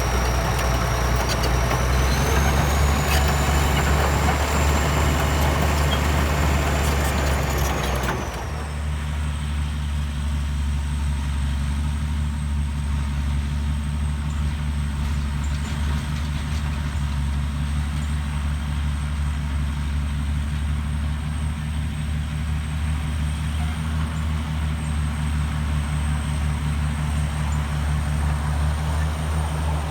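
Bulldozer's heavy diesel engine running. For the first eight seconds it is louder and noisier, with a high whine that rises about two seconds in. The whine falls around eight seconds in, and the engine then settles into a steadier run with a steady high whine.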